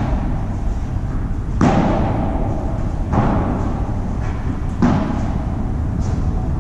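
Padel rally: the ball is struck by rackets and knocks off the court and glass walls, about five sharp knocks roughly a second and a half apart, each ringing briefly in the hall. A steady low rumble runs underneath.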